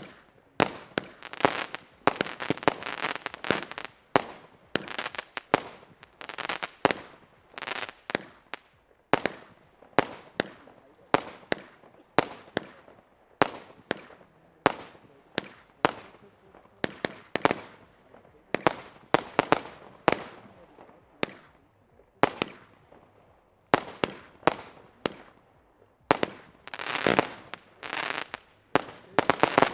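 Consumer firework battery firing shot after shot, with sharp bangs about one to two a second. Stretches of crackling bursts come near the start and again near the end.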